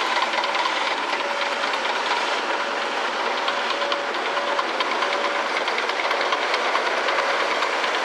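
Construction-site noise from earthmoving machinery and passing road traffic: a steady rushing noise with fast ticking through it and a faint whine that comes and goes.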